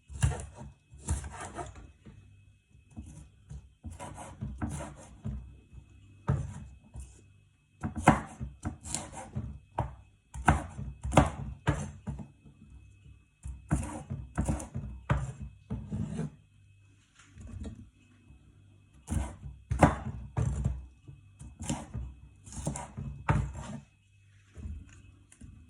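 Knife slicing bell pepper on a cutting board: runs of quick, irregular strokes with short pauses between.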